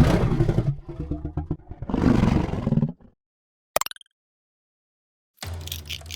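Godzilla-style monster roar sound effect: two long, rough, low roars run back to back over about three seconds. A brief sharp noise follows, and near the end music begins with a wood-block beat.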